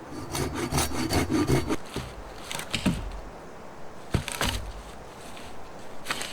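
Wood being worked by hand, with rough rasping strokes in a fast run of about five a second for about a second and a half. Then come three separate sharp cracks or scrapes a second or two apart.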